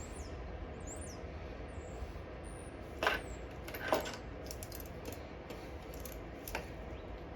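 A few light clicks and taps of small parts being handled at a lawn mower while its fuel is drained, the loudest about three and four seconds in, over a steady low background with birds chirping near the start.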